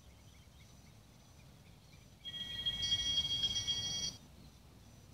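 Altar bells rung at the elevation of the chalice during the consecration of the Mass, heard through a digital radio's loudspeaker. A bright ringing of several steady tones starts about two seconds in, lasts about two seconds and stops suddenly.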